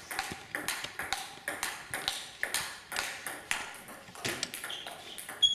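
Table tennis rally: the ball clicks off the bats and bounces on the table, about four clicks a second, with a sharper click near the end.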